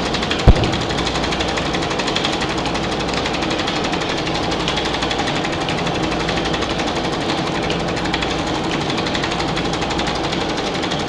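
Film projector running with a steady, rapid mechanical clatter, as dense noise, and one sharp loud click about half a second in.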